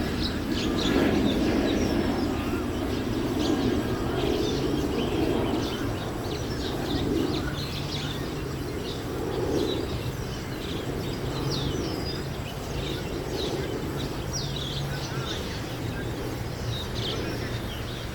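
Many birds chirping in the treetops at dusk, a dense scatter of short high calls throughout. A low rumble runs underneath, louder in the first half, with a steady low hum.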